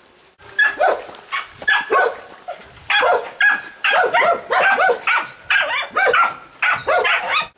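Dog barking from a kennel, a quick run of loud, sharp barks, two to three a second, starting about half a second in.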